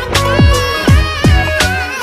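Background electronic music with a steady beat: deep kick drums that drop in pitch, hitting about every third of a second, under a wavering synth melody.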